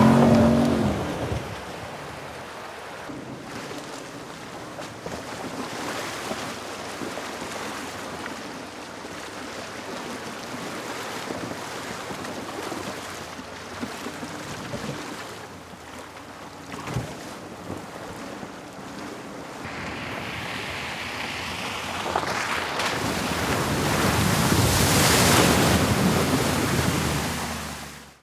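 Land Rover Defender's supercharged V8 engine revving and fading as it pulls away. A steady rushing noise follows. Near the end it swells into a loud rush of water as the Defender drives through a stream crossing, then cuts off suddenly.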